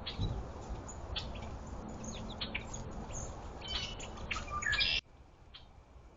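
Small birds chirping around a feeder: short, high chirps scattered over steady outdoor background noise, busiest in a flurry just before the whole sound drops away abruptly about five seconds in.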